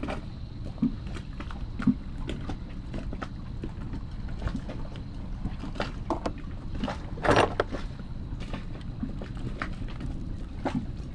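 Scattered light clicks and knocks of anchor-windlass motor parts being handled and set down, with a louder clatter about seven seconds in, over a steady low rumble.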